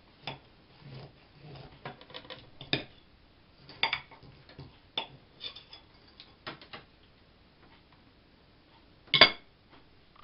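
Kitchen knife and china plate clinking and tapping as a kulich (Easter sweet bread) is cut and a slice laid out. The sounds are scattered short clinks, the loudest a sharp one about nine seconds in.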